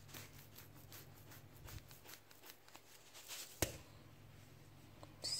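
Faint rustling and light clicks of ingredient containers and a spoon being handled on a kitchen counter, with one sharper knock about three and a half seconds in.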